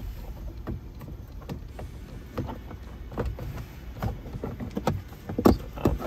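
Plastic interior trim panel on a Ford F-150 dash being worked into place and snapped down into its clips: a run of light plastic clicks and knocks, with two louder snaps near the end.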